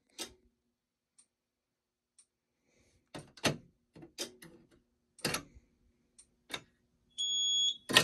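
Sharp clicks and knocks of a hand working a Simplex fire alarm pull station, several in a row about halfway through. Near the end a steady high electronic beep starts from the fire alarm system.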